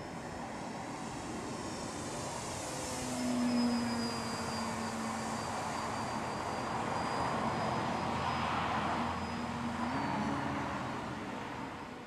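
Propeller engine of a small floatplane flying past: a continuous engine note with a steady high whine, loudest about three to four seconds in. A lower tone shifts in pitch and steps up about ten seconds in, and the sound fades near the end.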